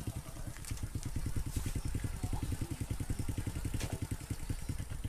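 Small engine running steadily at idle, a fast even putter, with a few short sharp clicks over it.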